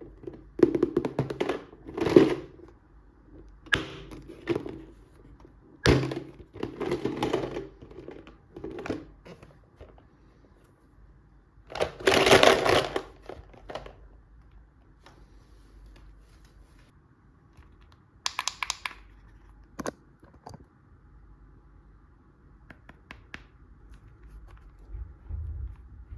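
Toy doll-set packaging and plastic pieces being handled and opened: a string of irregular rustles, knocks and clicks, with a longer crinkly burst about halfway through.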